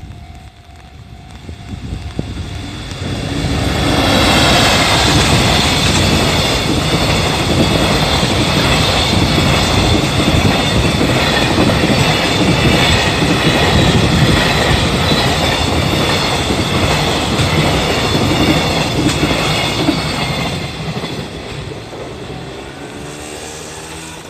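Freight train hauled by an EF65 electric locomotive passing close by over a level crossing. Rumble and wheel clatter rise about three seconds in, stay loud with some high ringing from the wheels, and fade away over the last few seconds.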